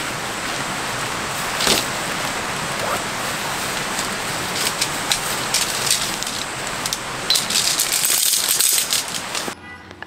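Rain pattering steadily, with a few sharper rattling clicks about two seconds in and again near the end; it cuts off suddenly.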